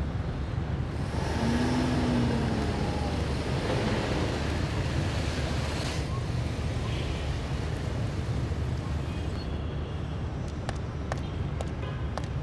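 Street traffic: a steady low rumble with a passing car that swells about a second in and cuts off abruptly around the middle. Near the end, sharp footsteps begin clicking on hard steps.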